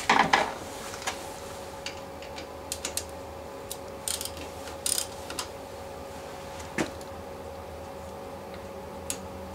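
Socket ratchet clicking in short spurts while loosening the bolt on a battery terminal clamp, after a loud clatter right at the start, over a steady faint hum.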